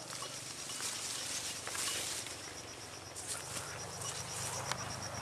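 Footsteps and the rustle of leaves and stalks as someone walks through a cassava and maize field, with scattered light crackles. A faint, steady high-pitched tone comes and goes behind it.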